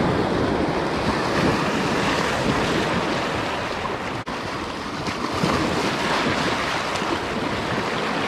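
Small surf breaking and washing over rocks at the water's edge, mixed with wind buffeting the microphone. The sound drops out for an instant about four seconds in.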